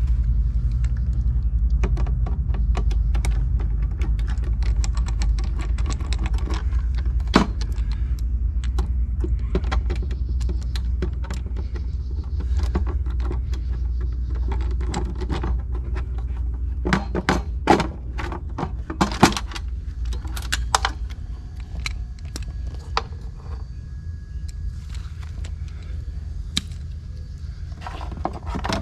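Small metal clicks, clinks and knocks of screws, a screwdriver and wire connectors as an RV water heater's control board is unfastened and pulled out, with a cluster of sharper knocks past the middle. A steady low hum runs underneath.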